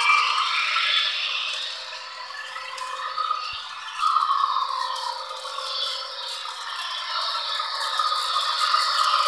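Model Union Pacific train running close past: a small electric motor whirring with wheels rattling on the track. It dies down about two seconds in and picks up again about four seconds in.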